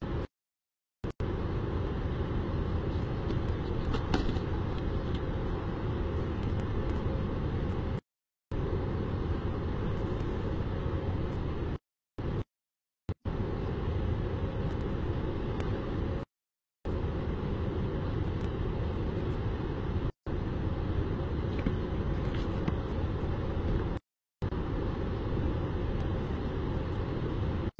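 Steady city traffic noise, a low, even rumble from the streets below, heard through an outdoor webcam's microphone. It cuts out to total silence for a fraction of a second several times.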